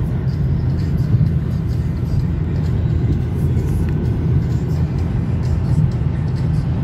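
Car travelling on a highway: steady low road and engine noise heard from inside the cabin.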